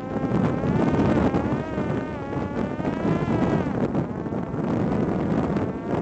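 Parrot Disco drone's electric pusher-propeller motor whining, its pitch wavering up and down before fading after about three and a half seconds, under heavy wind noise on the microphone.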